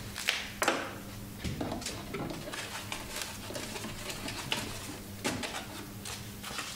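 Quiet handling noises: light plastic rustles and a few soft knocks as wrapped filament roll holders are taken out of a 3D printer, over a steady low hum.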